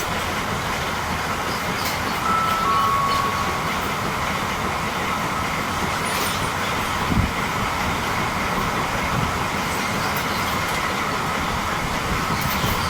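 A train passing on the rails, a steady loud rush of wheel and rail noise, with a brief high tone in two short steps about two to three seconds in and a single thump about seven seconds in.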